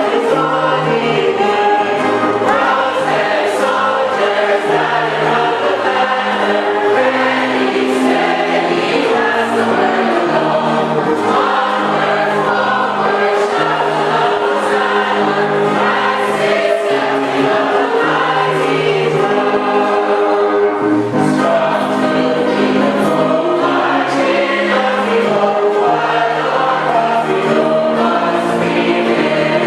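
Church congregation singing a hymn together, many voices in held, steady notes.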